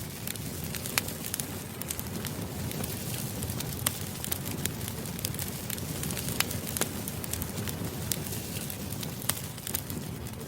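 Campfire burning: a steady low rush of flames with frequent sharp pops and snaps of crackling wood scattered throughout.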